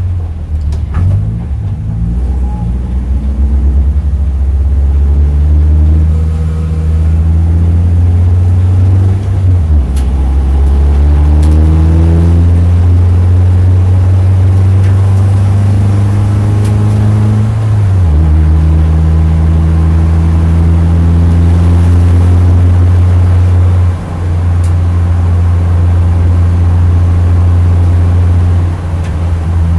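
Engine of a BMW Compact race car, heard on board, pulling up through the gears. Its note climbs and then drops at upshifts about ten and eighteen seconds in, with a brief lift off the throttle about 24 seconds in and again near the end.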